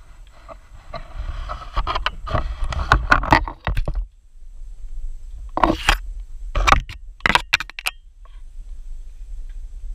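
Leaves and branches rustling and scraping against each other as someone pushes through dense rainforest undergrowth, with a steady low rumble of handling noise. About halfway through come several louder, sharp crackles of twigs and leaves brushing past.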